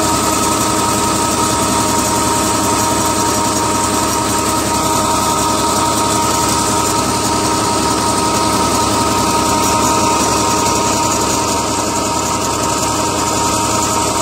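Tractor diesel engine running at a steady speed, driving a belt-and-pulley tube well pump through its PTO shaft.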